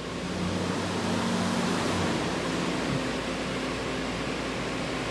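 Steady mechanical hum and air noise, with low droning tones that swell in over the first second and ease off after about two seconds.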